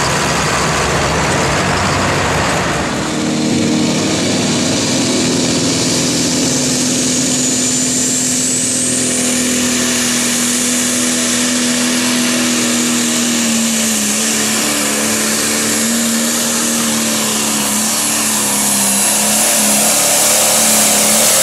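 Turbocharged diesel engine of a John Deere Pro Stock pulling tractor running hard under full load as it drags the weight sled. A high turbocharger whine climbs in pitch over a few seconds and then holds, and the engine grows a little louder near the end.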